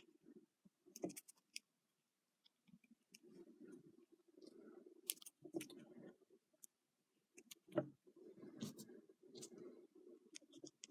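Faint handling of small plastic action-figure parts: scattered sharp clicks and light rubbing as pieces are fitted and turned, with the loudest click about eight seconds in.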